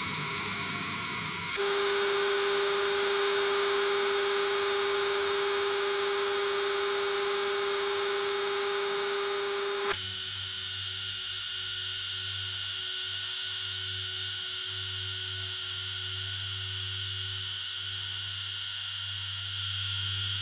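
Outboard motor idling with a steady hum, the tone changing abruptly about one and a half seconds in and again about ten seconds in, as if separate takes are joined.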